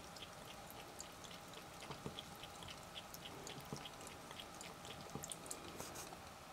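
Faint patter of water from a thin faucet stream falling into a sink and onto a cat's fur: small, irregular drip ticks over a low hiss.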